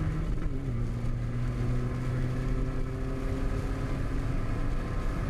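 Turbodiesel Skoda engine running under load, heard from inside the car, its pitch dropping about half a second in and then holding steady over low road rumble.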